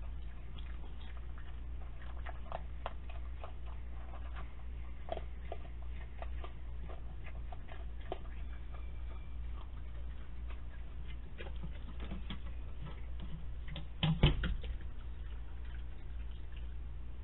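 Security camera microphone with a steady low electrical hum, scattered small clicks and crunches of a raccoon eating dry kibble from a steel bowl, and one loud thump about fourteen seconds in.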